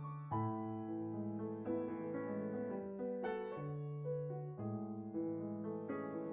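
Slow background piano music, with a chord struck about every second and a half and left to ring.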